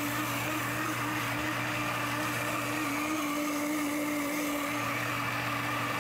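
Breville high-power blender running steadily at speed, its motor giving a constant whine as it blends soaked white rice, water and yeast into a smooth batter.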